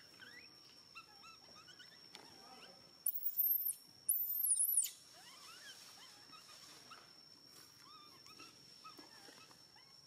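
Two loud, very high-pitched squeals a little after three and four seconds in, over many faint, quick chirping calls and a steady high whine.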